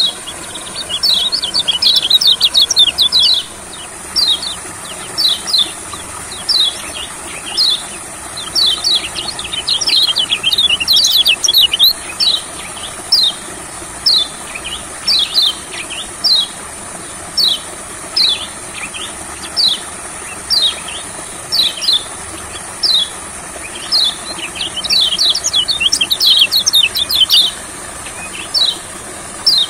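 Yellow white-eye (kecial kuning) calling: short, high, downward-slurred chirps. Most come singly about every 0.7 s, with fast excited runs at the start, in the middle and near the end. A steady high-pitched hiss runs underneath.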